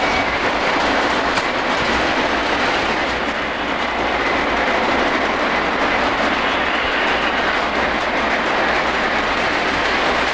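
Several Lionel O-gauge model trains running together on FasTrack: a steady noise of wheels and motors on the track.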